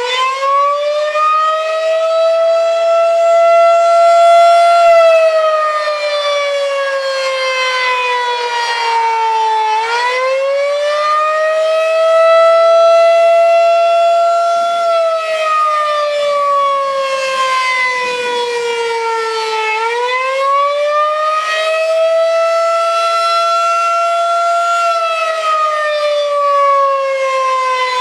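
Federal Signal 2001-130 outdoor warning siren sounding a wail during a test: a loud, rich tone that rises in pitch for about five seconds, then falls for about five, repeating roughly every ten seconds.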